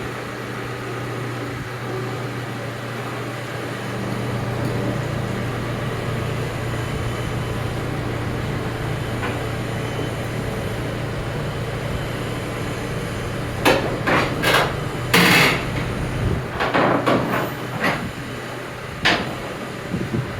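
A vehicle engine running steadily, then a run of sharp metallic clanks and bangs starting about two-thirds of the way through.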